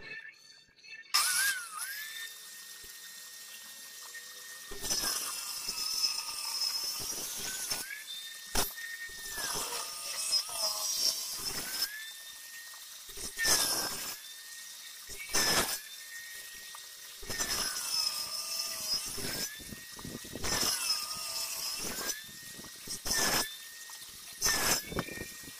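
Circular saw mounted blade-up under a plank as a makeshift table saw, starting about a second in and running with a steady high whine. The whine sags again and again as a hardwood block is pushed through the blade for a series of cuts, each cut bringing a harsh burst of cutting noise.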